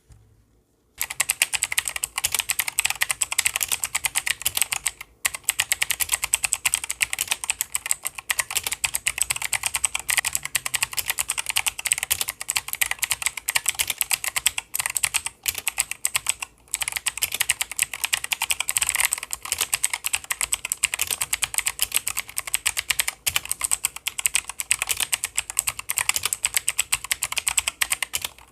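HyperX Alloy Origins mechanical gaming keyboard being typed on rapidly, a dense run of key clicks starting about a second in, with a couple of brief pauses.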